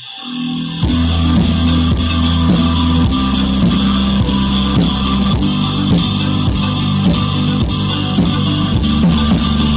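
Background music with guitar and a steady beat, fading in over the first second.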